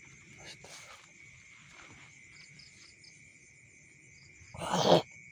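Night insects, crickets among them, chirring steadily in one high continuous tone with a faster pulsing trill above it. A loud burst of about half a second breaks in near the end.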